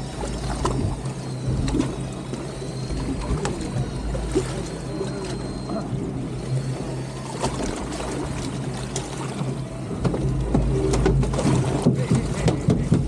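Boat engine running steadily under wind and water noise on the open ocean. About ten seconds in it gets louder, with a quick run of clicks and knocks.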